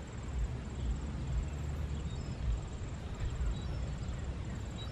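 Outdoor background: a low, uneven rumble with no distinct events, and a faint high trill pulsing evenly above it.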